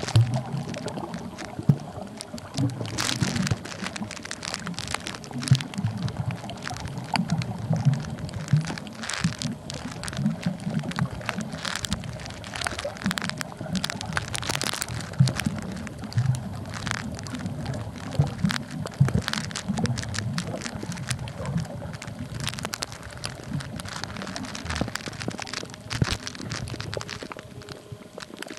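Underwater sound picked up by a camera in a soft waterproof case: dense, irregular clicking and crackling over a low, uneven water rumble.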